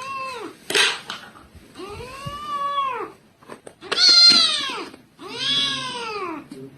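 A cat meowing repeatedly: about four drawn-out meows, each rising and then falling in pitch, the loudest about four seconds in.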